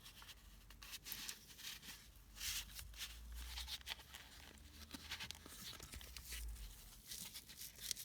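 Faint rustling and scraping as a flashlight is handled and worked into its holster, in a string of short scrapes.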